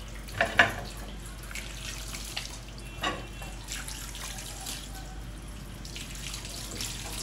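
Water running into a bowl of salted cut yam pieces to cover them, with a few short knocks, the loudest about half a second in.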